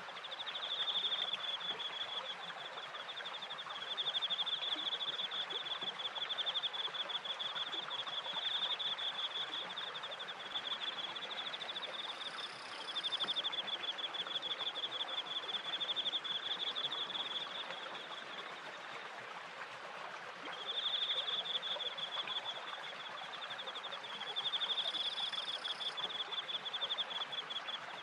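Crickets trilling in long pulsed bouts of several seconds, over the steady rush of water from a turning wooden water wheel and its stream.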